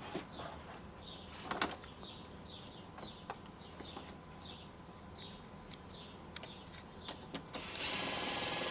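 A power drill or screw gun runs steadily for about a second near the end, driving a screw through the overlapping dimpled drainage membrane. Before that come a few handling knocks and a run of short, falling high chirps.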